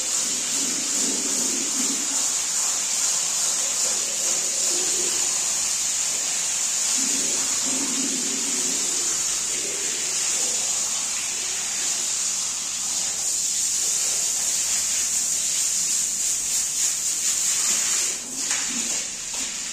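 Water spraying hard and steadily onto a rug, a continuous hiss that falls away sharply near the end.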